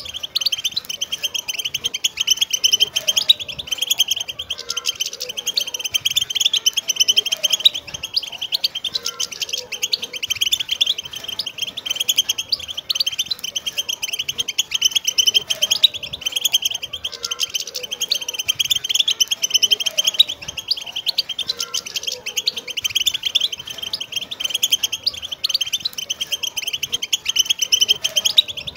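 A group of wild European goldfinches twittering and chattering together: a dense, unbroken stream of rapid high chirps and trills.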